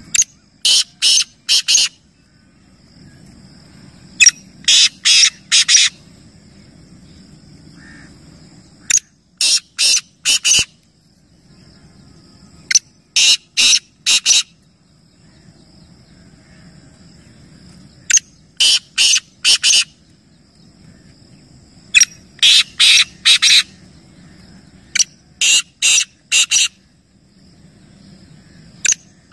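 Male black francolin (kala teetar) calling: a loud, harsh phrase of four or five sharp notes, repeated seven times at intervals of about three to four seconds.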